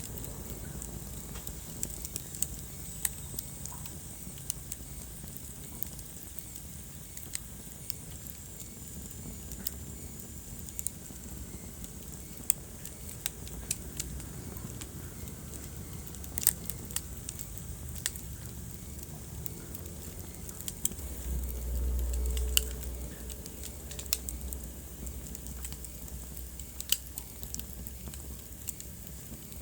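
Wood fire crackling in a fireplace: sharp pops at irregular intervals over a soft steady hiss, with a low rumble that swells for a couple of seconds a little past the middle.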